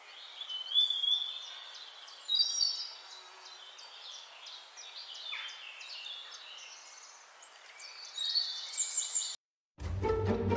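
Birds singing: many short high chirps and whistled calls, some sliding in pitch, over a faint hiss. The birdsong cuts off about nine seconds in, and after a short gap music with bowed strings starts near the end.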